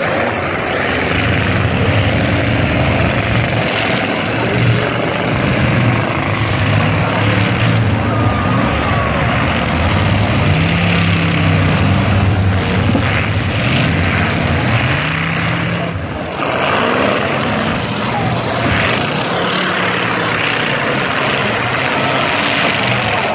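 Several demolition derby cars' engines revving up and down together, loud and unbroken, as the cars ram and reverse into one another, with now and then a bang of a collision.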